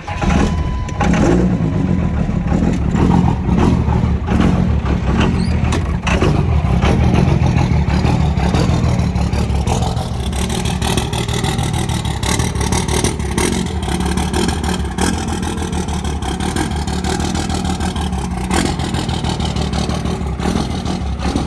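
Vehicle engine, just cold-started, running loud and steady, its rumble wavering a little throughout.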